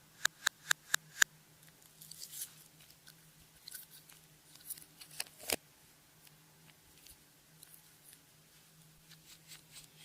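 Clear slime being worked by hand: a quick run of five sharp clicking pops, then softer crackling and sticky popping as it is pressed and stretched.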